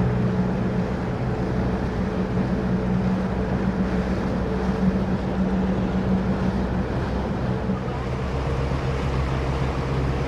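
Fishing boat's motor running steadily under way, with water rushing in the wake and wind buffeting the microphone. The engine note drops lower about eight seconds in.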